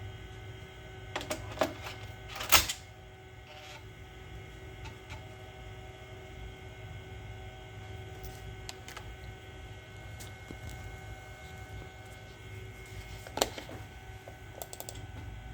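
Steady hum of a running Macintosh SE compact computer, broken by a few sharp clicks: a pair about a second in, a louder one soon after, and more near the end.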